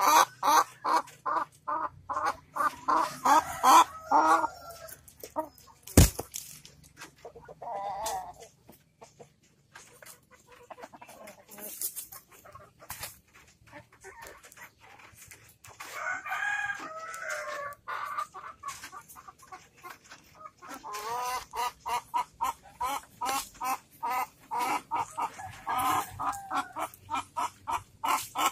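Village hen giving runs of rapid, evenly repeated clucks, about three to four a second, the nesting call of a hen about to lay and looking for a place to lay. A longer call comes about 16 seconds in, and there is one sharp knock about 6 seconds in.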